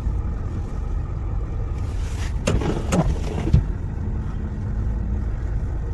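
Car crawling over a snow-covered road, heard from inside the cabin as a steady low rumble of engine and tyres, with its tyres slipping on black ice under the snow. A brief cluster of sharp knocks and squeaks comes about halfway through.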